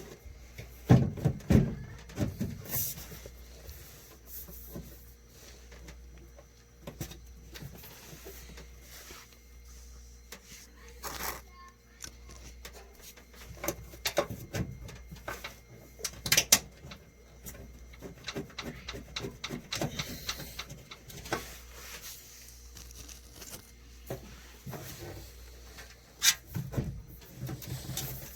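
Irregular clicks, knocks and light clatter of dryer parts and tools being handled, over a faint steady low hum. The loudest knocks come about a second in, around the middle and near the end.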